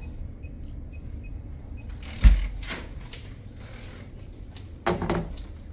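A hotel cabin door with an electronic lock being unlocked and opened: a few faint high beeps, then one heavy clunk of the latch and door about two seconds in, over a steady low hum.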